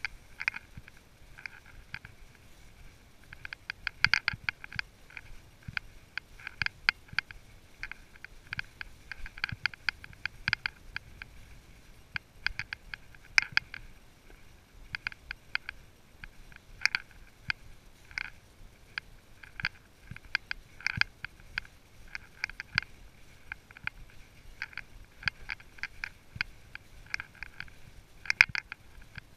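A horse walking along a trail of dry fallen leaves: a steady, irregular run of sharp clicks and crunches from its footfalls, in small clusters.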